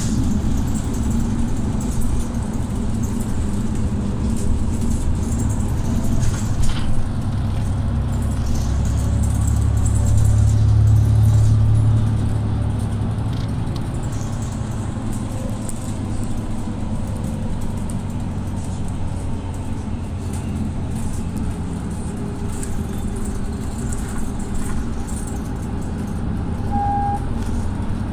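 Mercedes-Benz Citaro city bus under way, its engine drone and road noise heard from inside the passenger cabin. The low engine rumble swells about a third of the way in and then eases back, and a short beep sounds near the end.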